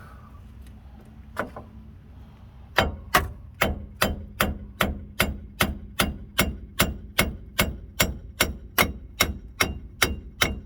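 Hammer striking a rusted, seized wheel hub and bearing assembly on a 2007 Chevy Avalanche to drive it out of the steering knuckle. One blow, then a steady run of sharp, ringing metal-on-metal blows about two and a half a second.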